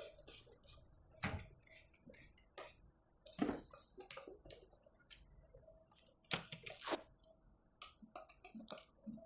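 Scattered small clicks, scrapes and knocks of a skateboard truck's mounting bolts and nuts being tightened down against the deck, with a few louder knocks about a second, three and a half seconds and six to seven seconds in.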